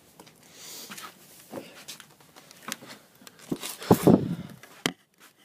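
Air rifle fired about four seconds in: one loud, low thump, with a single sharp click just under a second later. Light handling clicks and rustling come before it.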